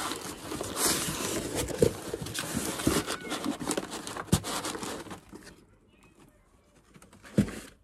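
Hand rummaging through a cardboard box and its brown paper packing, a continuous rustle and crinkle with light knocks for about five seconds, then quieter, with a single thump near the end.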